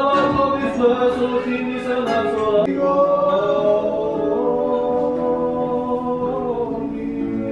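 A man singing in long held notes to acoustic guitar accompaniment; the singing comes in with an upward slide and carries on steadily.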